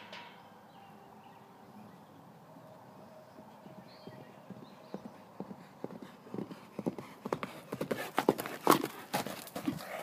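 Hoofbeats of a black-and-white pinto horse galloping over a dry dirt paddock. They are faint at first and grow louder over the second half as the horse comes close, with rapid, uneven thuds.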